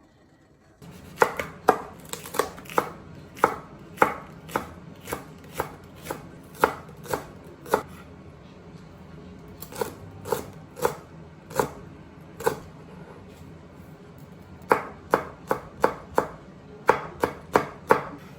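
Kitchen knife chopping on a cutting board: sharp, even strokes about two a second, starting about a second in, in three runs broken by two short pauses.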